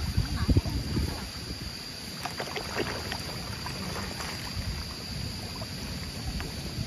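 A dense school of catfish thrashing at the water surface in a feeding frenzy, with continuous irregular churning splashes and slaps. The loudest splashes come about half a second in.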